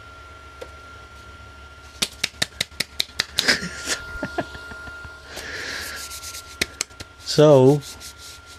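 Creality Ender 3 V3 Plus 3D printer clunking during its self-check: a run of about a dozen sharp clicks, roughly five a second, then a few more. Near the end comes a short, loud buzz with a wavering pitch. The clunking comes from the printer failing to locate its extruder head through a sensor on a cut wire, which the owner puts down to that wire.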